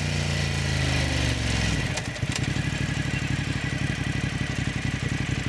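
Motorcycle engine coming down off a rev, its pitch falling, then settling into a steady idle about two seconds in.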